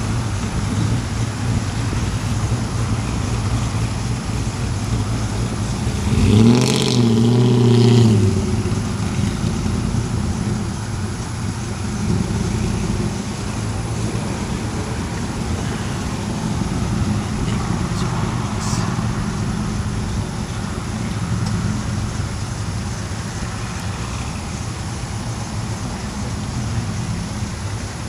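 Steady road traffic noise. About six and a half seconds in, one vehicle gets louder for a second or two with a pitched engine note.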